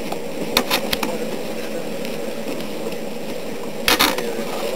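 Bloomery furnace working during a smelt: a steady rushing drone, with three sharp clicks about half a second in and a louder double knock near the end.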